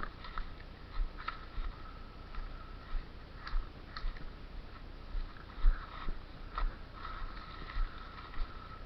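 Footsteps of the person wearing the camera, walking at a steady pace with a soft thud about every half second.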